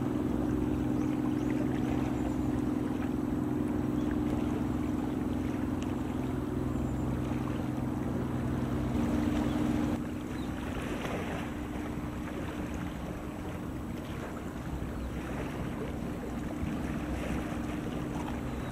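A small coastal cargo ship's diesel engine is heard across the water as a steady low hum, with wind on the microphone and the wash of waves. The sound drops a little in level about halfway through.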